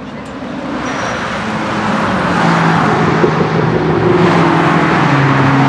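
A sports car's engine accelerating hard, growing louder as it comes closer, with the engine note dropping to a lower pitch about five seconds in as it passes.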